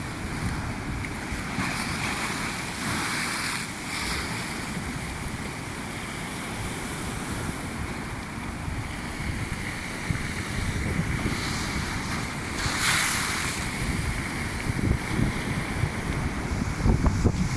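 Heavy sea surf: waves breaking and washing ashore, the hiss of breaking water swelling a few times, with wind buffeting the microphone.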